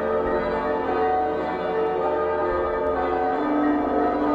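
Recorded church bells of Wiener Neustadt Cathedral pealing, several bells ringing together in a dense, overlapping wash. A lower bell's tone becomes prominent about three seconds in.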